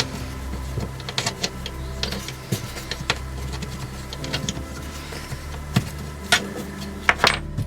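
Scattered clicks and knocks of metal jack parts being handled and fitted during reassembly of a trolley jack, the sharpest few near the end, over a steady low hum.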